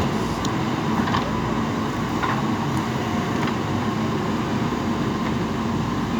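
JCB 3DX backhoe loader's diesel engine running steadily, with a few faint clicks.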